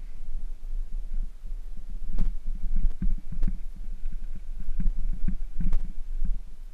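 Bicycle riding over a rough gravel and dirt track: a steady low rumble with irregular knocks and rattles as the wheels and frame jolt over stones and bumps, the sharpest about two seconds in and again about a second before the end.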